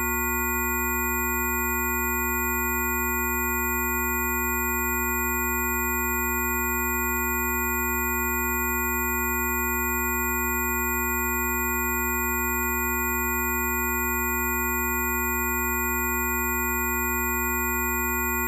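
A steady blend of several pure electronic tones held at fixed pitches, low to high, with no change at all, and faint high ticks about every one and a half seconds.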